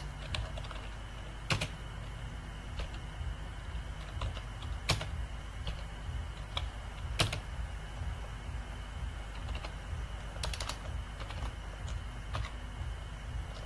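Computer keyboard keystrokes typed slowly, single key clicks spaced a second or more apart, with three louder strikes and a quick run of clicks about ten seconds in. A steady low hum lies underneath.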